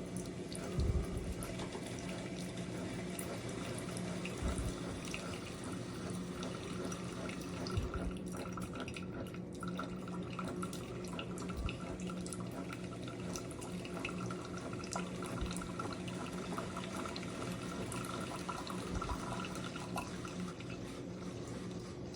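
Water running in a steady stream, with a steady low hum underneath and a few soft knocks.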